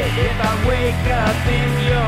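Rock music track, with a melody line of held notes that bend in pitch over a steady bass.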